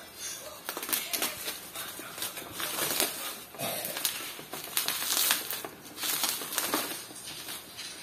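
Plastic shipping wrap being cut open, rustled and crinkled as a boxed keyboard is pulled out of it, in irregular scraping, crackling bursts.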